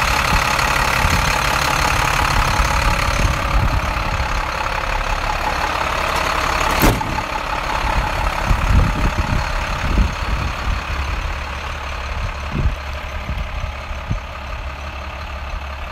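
International 7400 medium-duty truck's diesel engine idling steadily, growing fainter in the second half. A single sharp click about seven seconds in.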